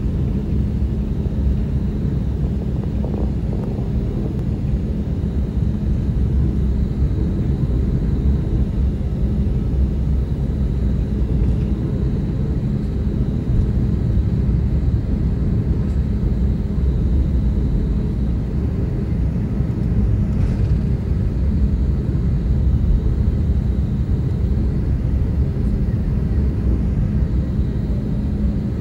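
Jet airliner on its takeoff roll heard from a window seat inside the cabin: a steady deep rumble from the engines at takeoff power and the wheels on the runway, with a faint high whine over it.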